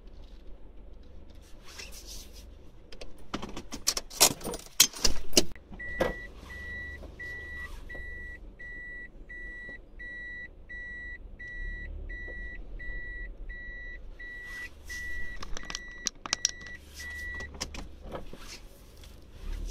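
A car's electronic warning beeper inside the cabin, beeping steadily at one high pitch about one and a half times a second for roughly twelve seconds, over a low engine and road rumble. Just before the beeping starts there is a short burst of loud rattling clicks.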